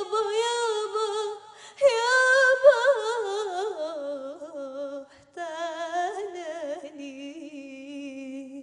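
A young girl singing unaccompanied into a microphone: long held notes with a wavering vibrato, in three drawn-out phrases broken by short breaths about a second and a half and five seconds in, the melody sinking lower toward the end.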